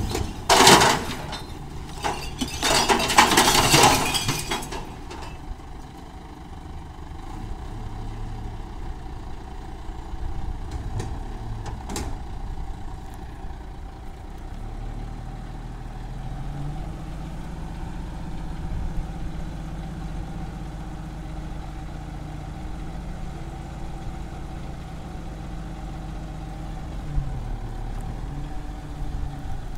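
Automated side-loader garbage truck tipping a wheelie bin: a loud clatter of rubbish dropping from the bin into the hopper over the first few seconds, then the truck's diesel engine running steadily. The engine revs up about halfway through and eases back near the end.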